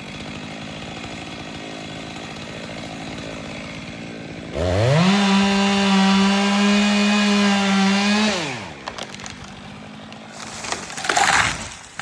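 Two-stroke chainsaw idling, then opened up to full throttle for about four seconds before dropping back to idle. A brief loud noise comes near the end.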